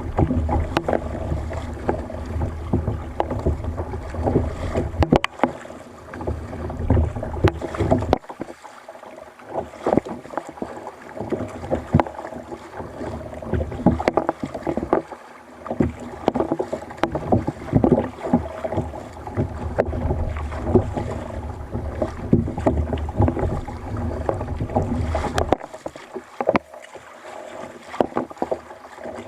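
Fishing kayak moving on the sea: irregular splashes and lapping of water at the hull. A low rumble comes and goes, dropping out about eight seconds in and again near the end.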